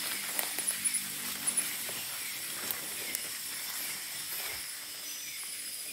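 Night-time forest chorus of insects: a steady high-pitched buzzing with a short chirp repeating about twice a second, and a few rustles and clicks in the first second and a half.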